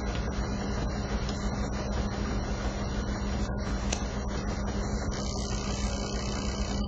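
Steady low mechanical hum of laundromat machinery, with a light click about four seconds in.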